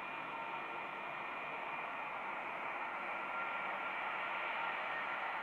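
Airbus A320-232's IAE V2500 turbofan engines running at low taxi power: a steady jet hiss with a thin high whine, slowly growing louder.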